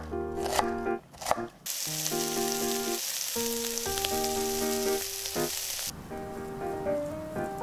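A few knife chops on a wooden cutting board, then bacon-wrapped egg rolls sizzling in a frying pan for about four seconds before the sizzle cuts off suddenly. Light background music plays throughout.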